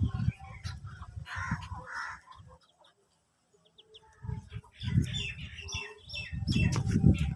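Birds chirping and calling, over stretches of low rumbling noise that is loudest near the end, with a short gap of near silence about three seconds in.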